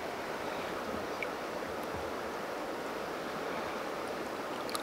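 Shallow river running over stones: a steady rush of flowing water.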